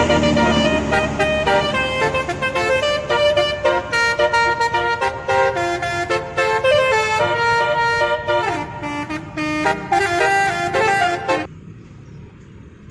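Multi-tone 'telolet basuri' horn playing a fast tune of stepped notes, several tones sounding at once. It cuts off suddenly near the end.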